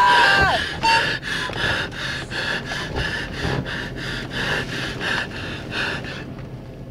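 A person's high, wavering scream breaks off about half a second in. Quick, rhythmic breathing follows, about three breaths a second, dying away near the end.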